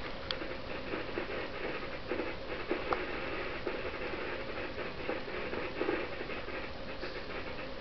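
A cat's tongue licking a kitten's fur close up: quick, repeated rasping strokes, an older kitten grooming a younger one.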